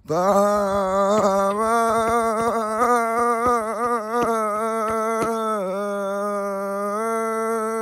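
A man singing unaccompanied, holding one long wordless note that wavers in pitch, dips slightly lower about two-thirds of the way through and rises back near the end.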